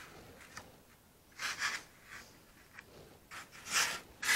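Quiet handling noise: a few short, soft rustles, about a second and a half in and again near the end, as a foam wing core with plastic drafting film laid on it is lifted and turned.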